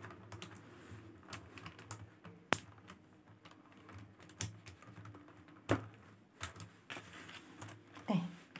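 Faint, irregular clicks and taps as a metal swivel clasp is fastened onto a ring on a beaded handbag and the beads knock together under the hands.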